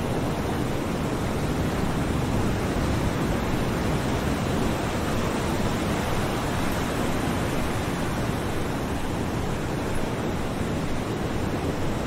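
Ocean waves lapping against the shore: a steady, even rush of surf with no single wave standing out.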